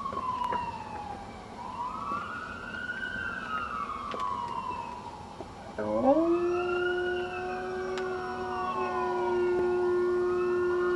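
A wailing siren rising and falling slowly, and about halfway through a German shepherd starts howling along with it: one long howl that rises briefly and then holds at an even pitch.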